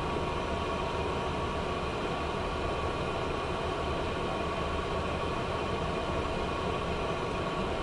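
Steady cockpit noise of a business jet taxiing with its turbofan engines at idle, an even rumble and hiss with faint steady whine tones.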